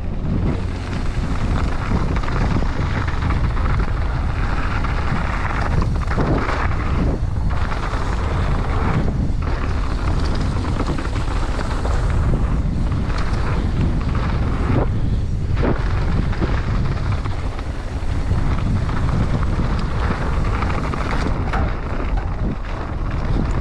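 Heavy wind rushing over the microphone, with the low rumble of a mountain bike riding fast down a bike-park trail; the noise drops briefly a few times.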